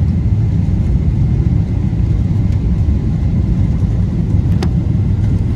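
Airliner cabin noise: a steady, loud low rumble of engines and airflow heard from inside the cabin, with a faint steady whine and a single short click about four and a half seconds in.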